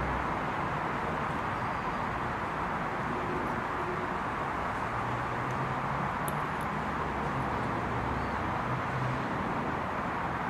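Steady rushing background noise with a faint low hum, and one faint sharp tick about six seconds in.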